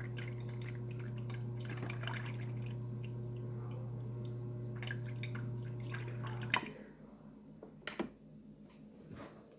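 Samsung refrigerator door dispenser running water, a steady hum of the dispenser with water splashing and dripping, which cuts off suddenly about six and a half seconds in; a few drips follow. The stop is taken for the fridge's built-in limit on dispensing time.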